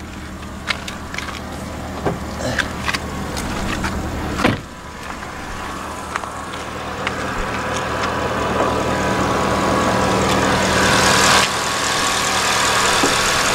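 A Porsche Panamera Turbo's 4.8-litre twin-turbo V8 idling with a steady hum. Several clicks and one loud knock come in the first few seconds as the hood is released and lifted. A rushing noise builds through the second half and drops sharply near the end.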